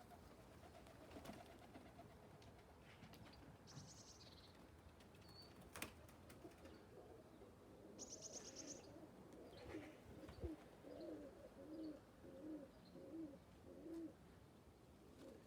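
Faint pigeon cooing: a run of short, repeated low coos in the second half. Two brief high chirps come earlier.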